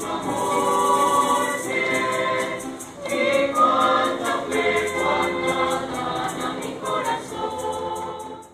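A choir singing, several voices holding notes together in harmony, fading out at the end.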